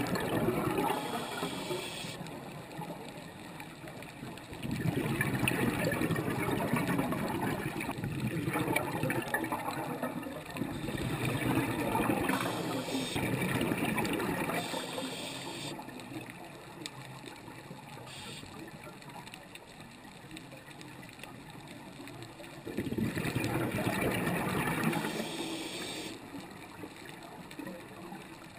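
Scuba diver's exhaled bubbles from a regulator, gurgling in bursts of a few seconds with quieter stretches between breaths.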